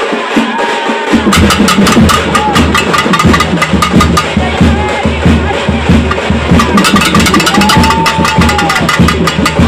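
Pambai drums played fast and loud with sticks, a dense driving rhythm of ritual drumming for calling the deity. A low steady hum comes in about a second in.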